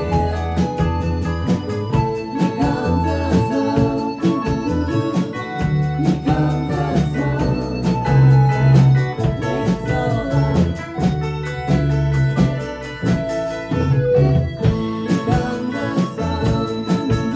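Live rock band playing an instrumental passage led by an electronic organ, with bass guitar and a steady drum beat.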